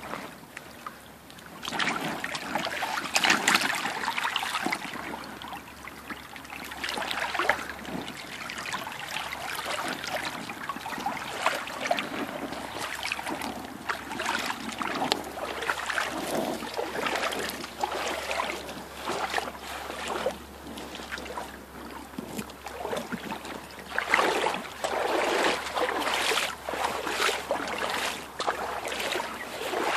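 Shallow creek water sloshing and splashing irregularly as it is waded through and stirred by hand over a gravel bed, louder in stretches near the start and again near the end.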